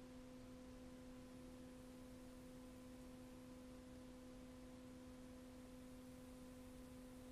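Near silence: a faint, steady hum over background hiss, with no other sound.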